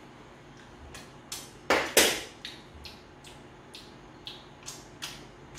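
A run of small clicks and light taps, with two louder, noisier ones close together about two seconds in.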